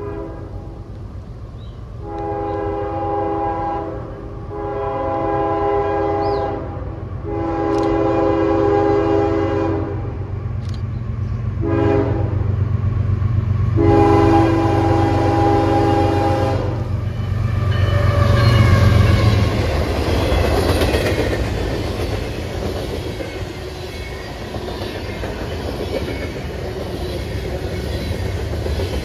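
Diesel freight locomotive's multi-chime air horn sounding the grade-crossing signal as the train approaches: two long blasts, a short one and a final long one. Then the locomotive's engine passes close, and the freight cars roll by with a steady clatter of wheels over the rail joints.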